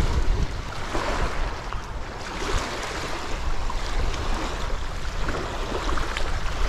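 Wind buffeting the microphone with a steady low rumble, over choppy lake water washing against the bank.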